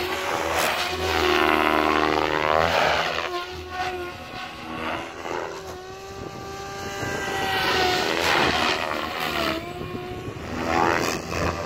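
Goblin 570 electric RC helicopter flying hard 3D: a whining tone from the rotor head and motor over the chop of the 560 mm main blades, its pitch bending down and up as the heli is thrown through manoeuvres. It swells and fades as the heli comes close and moves away.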